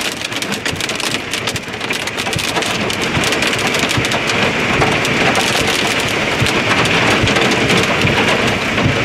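Hail and heavy rain pelting down in a dense, steady patter of many small hits, with wind in it. It gets a little louder after about three seconds.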